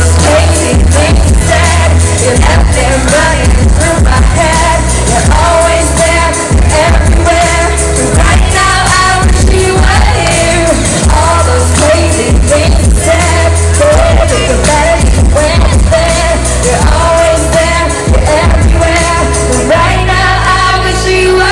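Pop song performed live: voices singing a melody over a loud backing track with heavy bass and a steady beat.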